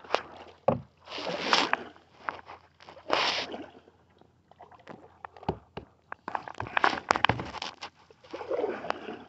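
Water sloshing and splashing around a kayak as it moves along, in swells a second or two apart, with sharp knocks and clicks in between.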